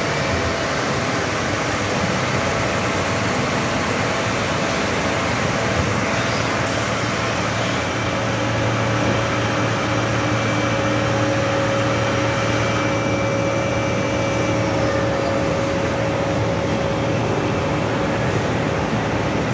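Steady hum and hiss of industrial machinery around a running disc oil skimmer. The hum's pitch shifts about eight seconds in, and there is a short hiss about seven seconds in.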